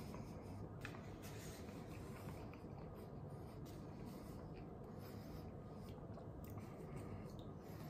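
Faint scraping and light clicks of wooden chopsticks stirring noodles in a paper instant-noodle cup, over a low steady hum.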